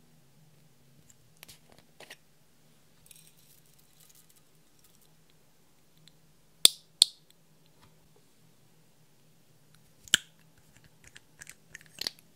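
Small plastic makeup containers and beads clicking and tapping against a glass baking dish. There are two sharp taps close together about seven seconds in, another about ten seconds in, and a quick run of small clicks near the end as a dropper bottle is opened, all over a faint low hum.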